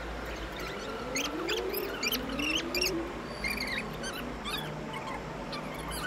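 An animal's short, high-pitched squeaks and chirps, repeated irregularly, with a few rising whines.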